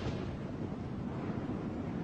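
Steady low rush of stormy wind.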